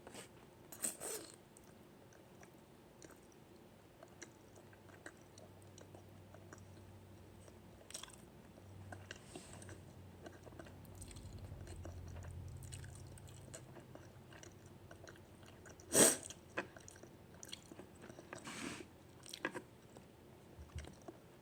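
A person chewing a mouthful of spicy Buldak instant noodles, with scattered small clicks of eating, a brief louder cluster about a second in, and one sharp knock about 16 seconds in, the loudest sound.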